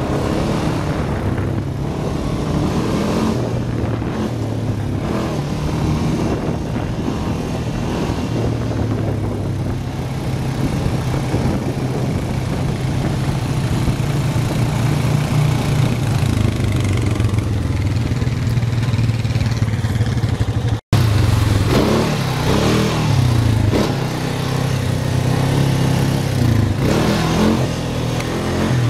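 ATV engine running under way, its pitch rising and falling with the throttle, over a steady haze of wind and ride noise. The sound drops out for an instant about two-thirds of the way through.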